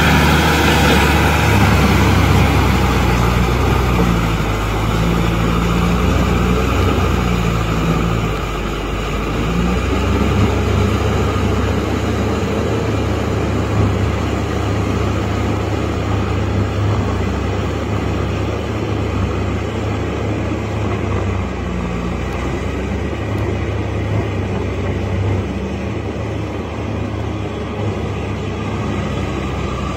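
Kubota M6040SU tractor's diesel engine running steadily as it pulls a rotavator through a flooded, muddy field. It makes a low drone whose pitch wavers during the first ten seconds, then settles.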